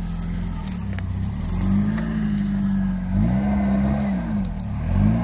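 Off-road 4x4's engine running steadily, then revved up and back down about three times from about two seconds in as the vehicle is worked through ruts.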